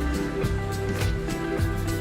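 Background music: a mellow instrumental track with plucked guitar, a steady bass line and a regular beat about twice a second.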